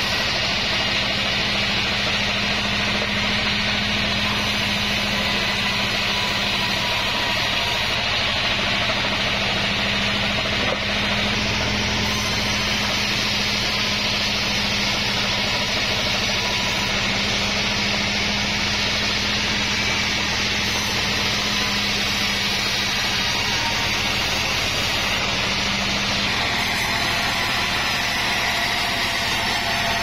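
Vertical band sawmill running steadily, its blade cutting lengthwise through a log, with a motor hum under the hiss of the cut.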